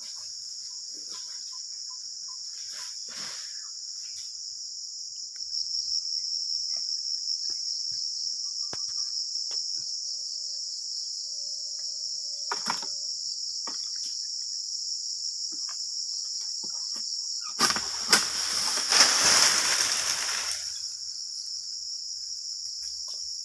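Steady high-pitched shrill of insects, louder from about five seconds in. About three-quarters of the way through comes a loud rustling crash lasting about three seconds, as a piece cut from the oil palm's crown with the harvesting pole falls down through the fronds.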